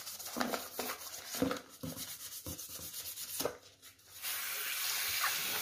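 A toothbrush scrubbing an orange plastic soap dish in quick, irregular strokes. About four seconds in, the scrubbing stops and a tap starts running in a steady hiss.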